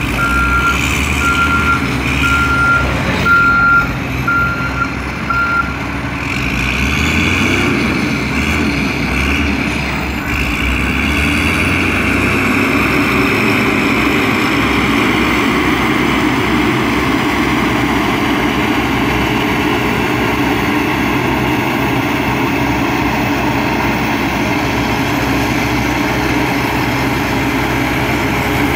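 Diesel engine of a heavy road-building machine running, with its reversing alarm beeping evenly for the first five or so seconds, then stopping while the engine keeps running.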